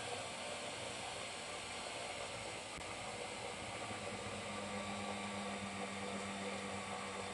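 Electric countertop food processor running steadily on low speed, its blade mixing a cake batter of flour, egg, melted butter and milk. A faint hum in the motor noise steps up in pitch about four and a half seconds in.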